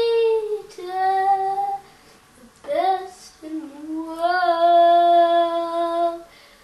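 A high voice singing alone, without accompaniment, holding drawn-out steady notes: two held notes in the first two seconds, a short rising note, then one long note of nearly three seconds.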